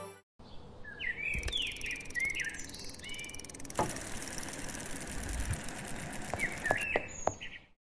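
Outdoor ambience of birds chirping over a soft hiss, with a few light knocks. In the middle a fast, even ticking runs for about three seconds: a bicycle freewheel clicking as the bike coasts up and stops.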